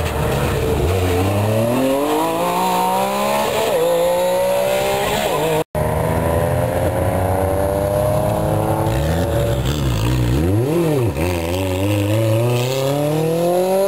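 Rally car engines accelerating hard through the gears, the revs climbing steadily with a gear change about three and a half seconds in. After an abrupt cut, a second car accelerates, its revs dipping and rising twice around ten seconds in before climbing again.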